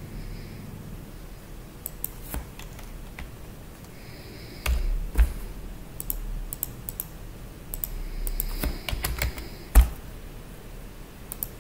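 Computer keyboard typing and mouse clicking: irregular sharp clicks, with a few heavier taps and the loudest one near the end.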